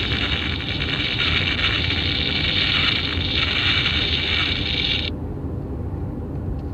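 A sound-effect button toy playing one of its canned effects through its small speaker, a hissing, noise-like sound held for about five seconds that cuts off suddenly. A steady low rumble runs underneath.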